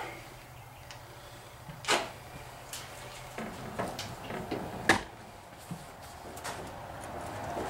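Workshop handling sounds: a few sharp clicks and knocks as a MIG welding gun and its cable are picked up and moved by a gloved hand, the loudest about two seconds and five seconds in, over a low steady hum that stops about three and a half seconds in.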